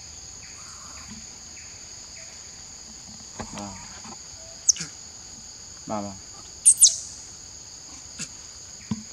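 A steady, high-pitched insect drone, with a few short calls over it and several sharp, high, falling chirps, the loudest a pair about two-thirds of the way through.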